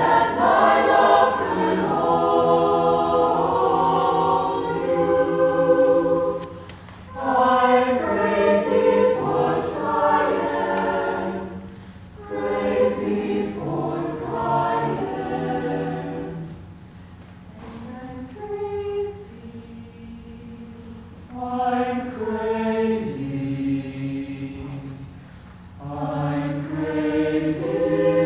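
Mixed choir of female and male voices singing held chords in phrases broken by short pauses, with a softer passage about two-thirds of the way through.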